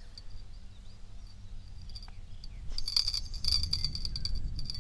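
Insect chirring: a high, fast-pulsing buzz, faint at first, that grows loud about two and a half seconds in and keeps going. A low rumble sits under it.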